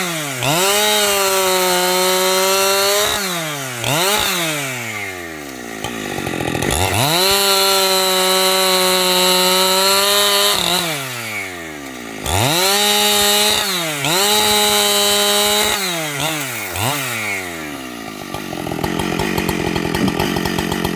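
Two-stroke 585XP chainsaw sawing through wood at full throttle, held steady for a few seconds at a time. Between cuts the engine drops off and revs back up four times. Near the end it settles into a fast, even idle.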